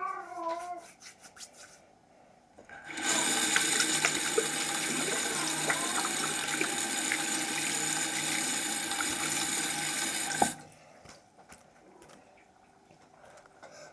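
Bathroom tap running water into a sink for about seven seconds during hand washing, then turned off suddenly.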